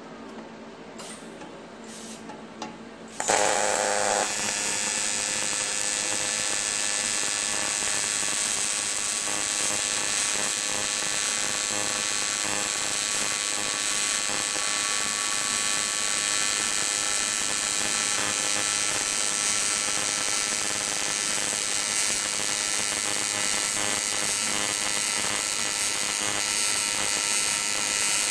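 AC TIG welding arc on aluminum sheet: the arc strikes about three seconds in, then buzzes steadily and evenly as the seam is welded.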